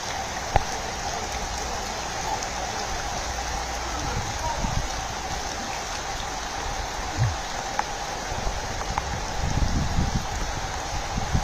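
Steady rain, an even hiss of falling water, with a few low bumps near the end.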